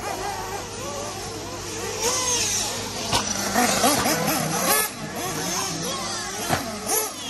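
Several 1/8-scale nitro RC buggy engines revving, their pitch gliding up and down with the throttle, louder about two seconds in as the cars pass close by. A few sharp knocks are mixed in.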